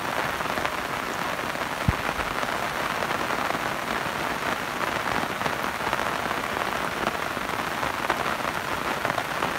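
Steady rain falling on the river and its bank: an even hiss with scattered taps of single drops.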